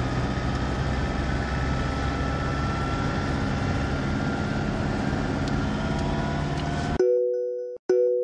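A vehicle driving: a steady engine and road rumble with slowly drifting pitch. It cuts off abruptly about seven seconds in, and a two-tone van horn honks twice, the second honk still sounding at the end.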